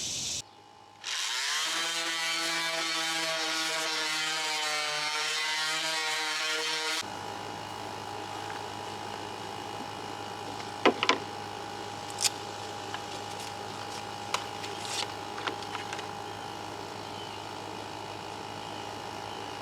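An electric power tool's motor spins up, rising in pitch, and runs steadily for about six seconds, then stops abruptly. After that a steady low hum continues, with a few sharp clicks and taps.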